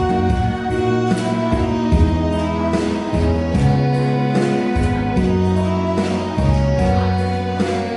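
Music: an instrumental accompaniment with held notes over a changing bass line and a steady beat.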